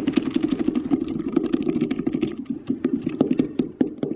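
A hand scraping and scooping out the inside of a hollowed pumpkin: a fast, rough run of scrapes that eases off near the end.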